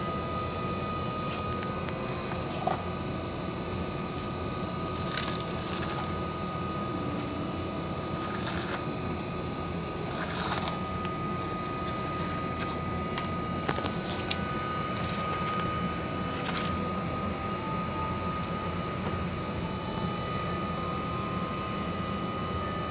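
A steady mechanical drone with a constant high whine in it, and now and then faint crackles and rustles from cardboard glue traps being handled.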